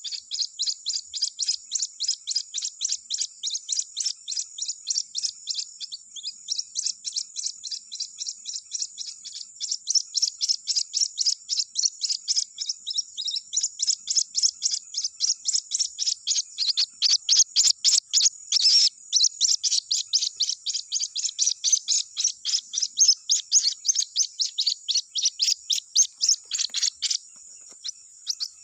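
White-breasted waterhen chick peeping: short, high-pitched cheeps repeated steadily about three to four times a second, the call a chick gives for its mother. The calling breaks off briefly near the end.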